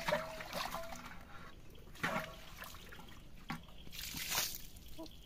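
Water trickling and sloshing in short, irregular spells.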